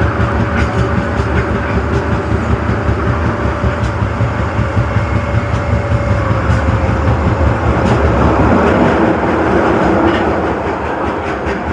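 Osaka Metro Tanimachi Line 22 series subway train running between stations: steady running noise with occasional clicks of the wheels over rail joints, and a steady whine that fades out about seven seconds in.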